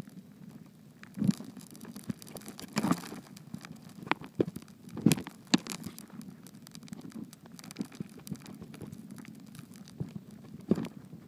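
Irregular knocks and clicks on a camera submerged in a river, heard through its housing over a low rumble. The loudest knock comes a little after five seconds in.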